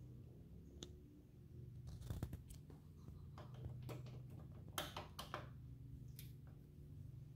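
Faint handling noise: a scattered handful of short clicks and rustles over a low steady hum.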